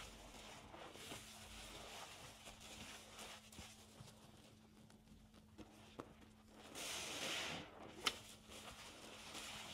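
Soap-soaked car sponges squeezed by hand, giving soft wet squelches and crackling suds, with a louder squish about seven seconds in and a sharp click just after eight seconds.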